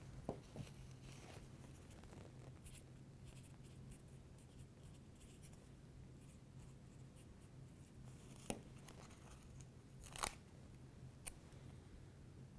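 Faint handling at a table: a pen writing on a paper medication label, then a few soft clicks in the second half as the label is fitted to a plastic syringe. Near silence otherwise.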